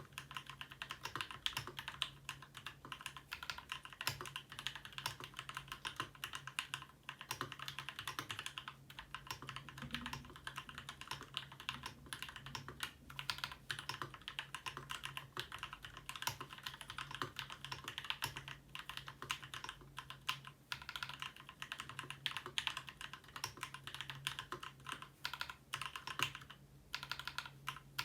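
Continuous fast typing on a Ramaworks M60-A Seq2 60% mechanical keyboard with an internal dampener, its Gateron Black Ink switches lubed with Krytox 205g0 and fitted with switch films, and C³equalz screw-in stabilisers. The keystrokes run as a dense stream of clicks, with a brief pause near the end.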